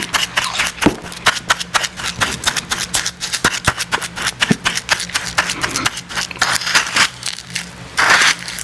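Close-miked chewing and crunching of icy Icee slush: rapid crackling clicks, several a second, with a louder, longer rush of sound about eight seconds in.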